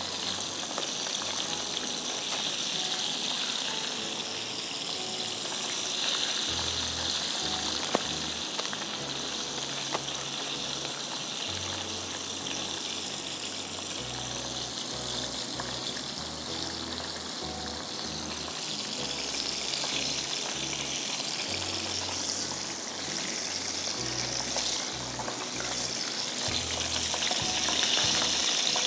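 Oil sizzling steadily in a frying pan on a gas burner, over soft background music with a low bass line.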